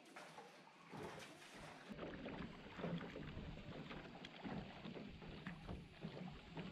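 Wooden paddles dipping and splashing in calm river water as a small rowed sampan moves along, with irregular small splashes and water lapping.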